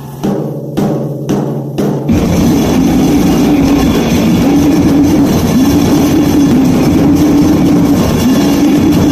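Raw goregrind rehearsal recording: a few separate drum hits over a held low note, then the full band comes in about two seconds in, drum kit pounding under distorted guitar riffs.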